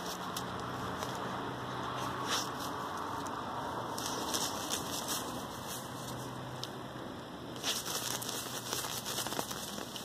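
Dry grass and stalks rustling and crackling as a dog pushes its nose and head through them, in short spells, the busiest near the end.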